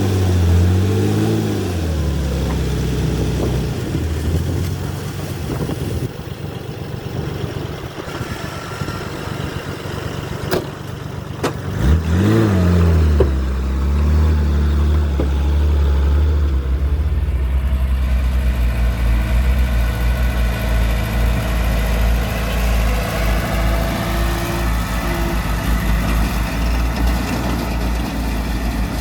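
Heavy earthmoving machine's diesel engine working, revving up and back down near the start and again about twelve seconds in, otherwise running steadily under load. A few sharp clanks come about ten seconds in.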